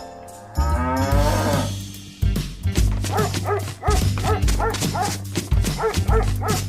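A cow's long moo, then a quick run of short dog yips, about three a second, over a backing tune with a steady beat.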